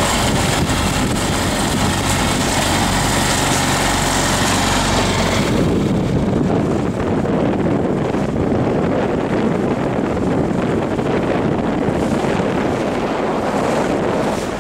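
Mercury outboard motor running steadily, pushing a small sailing boat through choppy water, mixed with wind buffeting the microphone and water rushing along the hull. About five seconds in the sound turns suddenly duller, leaving mostly wind rumble and water noise.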